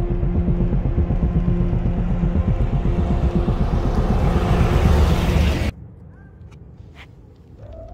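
A large SUV drives past, its engine and tyre noise swelling to a peak about five seconds in, over a low steady rumbling drone. The sound cuts off suddenly, leaving a much quieter stretch with a few faint clicks.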